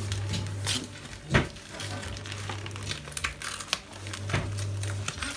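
Gift wrapping crinkling and rustling as a child's hands handle and pull at it: many short crackles, the sharpest about one and a half seconds in.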